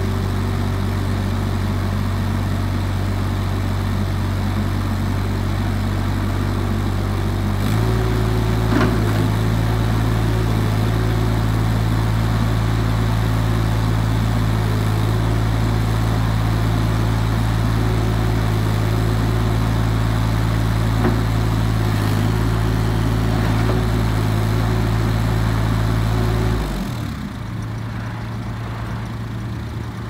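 Diesel engine of a Terex R070T compact track loader running steadily, stepping up in speed and getting a little louder about a quarter of the way in while the loader arms are worked, then cutting off near the end.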